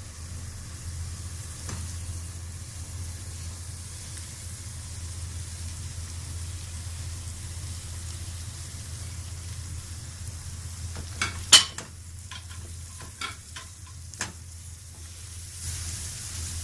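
Cauliflower florets frying in hot oil with spices, sizzling steadily, while being stirred in the pot. A few sharp clicks and knocks of the spoon against the pot come about eleven to fourteen seconds in, and the sizzle grows louder near the end.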